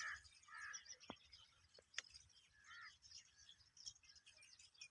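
Near silence with faint chirping and twittering of small birds in the distance, and a couple of faint ticks.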